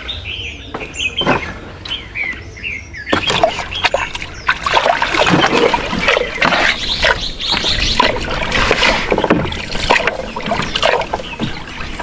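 Small birds chirping for the first three seconds. Then a busy run of splashing and knocking begins, as of water being worked from a small boat, and lasts to the end.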